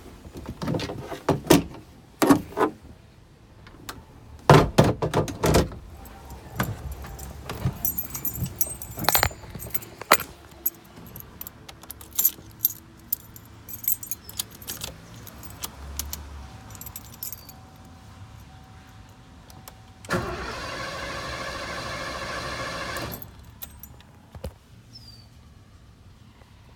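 Keys jangling with a run of sharp knocks and clatter, then, about twenty seconds in, a steady buzz that lasts about three seconds and cuts off.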